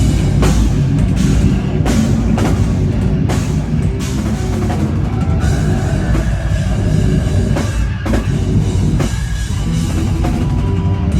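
Metalcore band playing live and loud: heavy distorted guitars and bass over a drum kit, with hard hits every half second or so.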